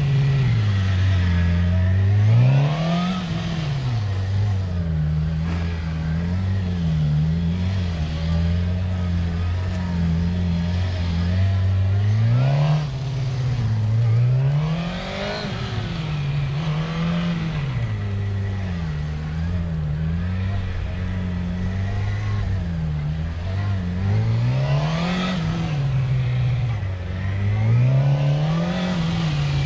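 Suzuki GSX-R600 inline-four engine revving up and down over and over as the bike is ridden through a cone course. Short bursts of throttle rise in pitch, with several big climbs, and between them come quicker small throttle pulses.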